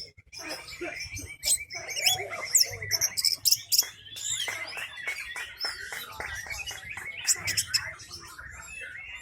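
Orange-headed thrush singing a long, varied song of rapid chirps, whistles and trills, with a steady trill held through the first half.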